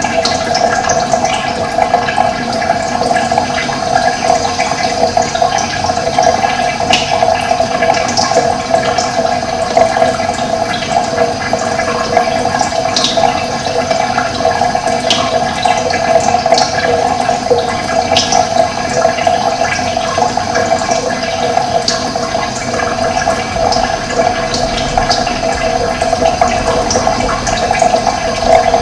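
Running water flowing steadily, with brief high bird chirps scattered over it.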